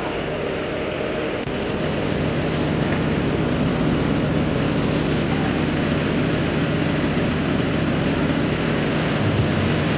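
Heavy diesel machinery engine running steadily under load while a pontoon hangs from the crane hook, getting louder about a second and a half in.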